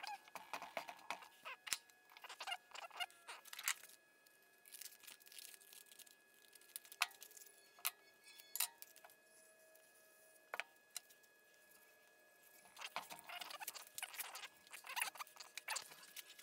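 Faint, irregular scratching and rustling with light clicks: 400-grit sandpaper being worked by hand over the journals of a Ford 351M crankshaft. The scratching thins out in the middle and picks up again after about thirteen seconds.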